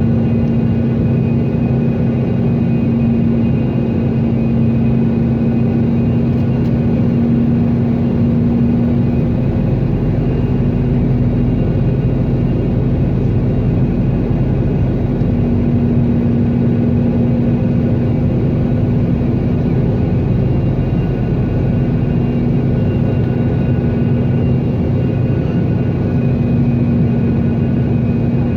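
Steady engine drone with a constant low hum and a rushing noise, unchanging in level throughout.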